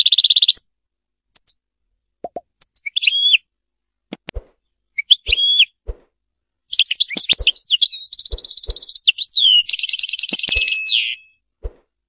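European goldfinch singing: bursts of quick twittering notes with short pauses between them, and two fast rattling trills in the second half. A few soft low knocks fall between the phrases.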